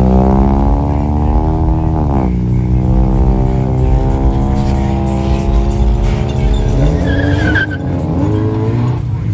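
Performance car engine revving as the car pulls away: the pitch rises, drops sharply about two seconds in, then holds steadier. A short high squeal comes about seven seconds in.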